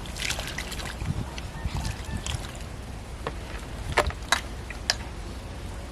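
Pointed gourds being washed by hand in a bowl of water: water sloshing and splashing, with four sharp knocks in the second half.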